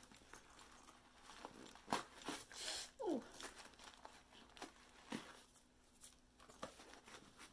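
Packing paper crinkling and rustling in scattered bursts as it is worked out from inside a boot, stuck and hard to pull free. A short falling tone about three seconds in.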